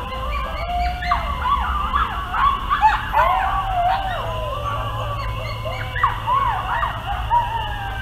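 A pack of coyotes howling and yipping together in a chorus, many voices overlapping and gliding up and down in pitch.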